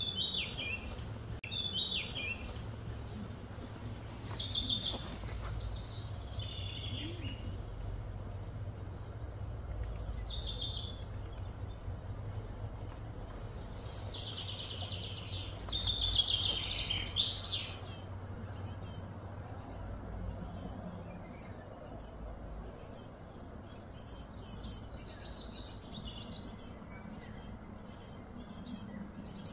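Birds chirping and calling, with many short high chirps and trills that come thickest midway, over a steady low hum.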